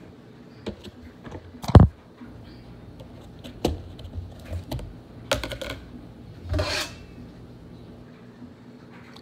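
Plastic food-storage container being handled and its snap-on lid pressed into place: a series of irregular clicks and knocks, the loudest about two seconds in, with a short scrape near the end.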